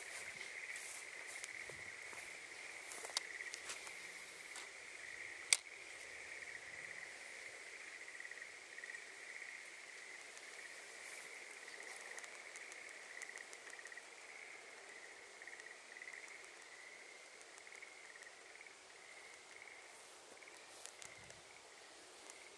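Faint, steady trilling of insects, wavering slightly in pitch. Over it, in the first few seconds, come rustling steps through grass and a few sharp clicks, the loudest about five and a half seconds in.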